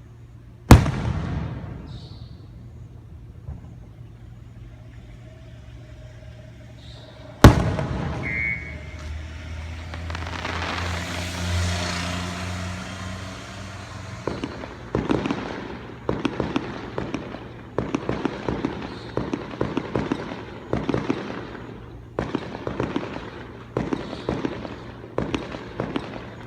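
Fireworks going off: two sharp loud bangs about seven seconds apart, then a hissing rush that swells and fades, then dense crackling pops in quick clusters through the second half.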